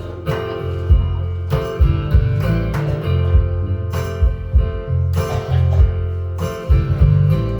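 Guitar strummed in a steady rhythm, an instrumental passage of a folk song with no singing.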